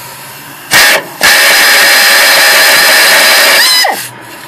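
A 3/8-inch air impact wrench hammering on a seized lower sway bar link nut through a universal joint. There is a short burst about a second in, then a steady run of nearly three seconds that stops near the end. The nut stays on solid and does not break loose.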